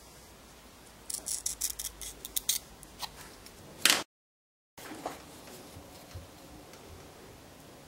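Pointed scribing tool scratching a line into a plexiglass plate: a quick run of short, high, scratchy strokes lasting about a second and a half. A louder knock follows, and the sound cuts out briefly.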